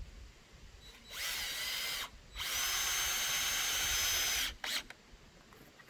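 Cordless drill running in two bursts, about a second and then about two seconds, its motor whine rising as it spins up and then holding steady, with a brief blip near the end.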